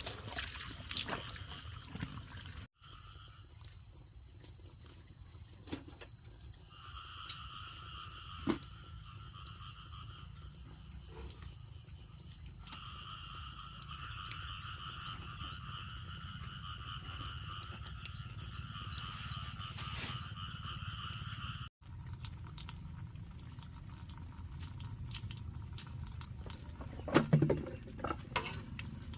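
Frogs calling in a steady, pulsing chorus, with a high steady whine behind it. Near the end come a few sharp knocks.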